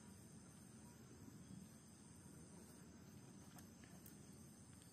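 Near silence with the faint, steady high-pitched chirring of insects in the background, and a couple of faint ticks past the middle.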